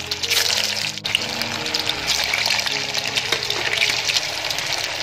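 Rice-flour vadas sizzling and crackling steadily as they deep-fry in hot oil, over soft background music.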